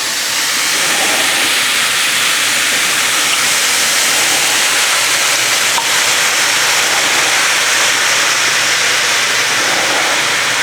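Oyster mushrooms sizzling in a hot pan, with a steady loud hiss as a splash of water added in place of oil boils off into steam.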